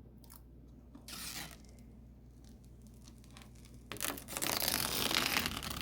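Protective plastic film being peeled off a new PC case: a short peel about a second in, then a longer crackling peel from about four seconds in.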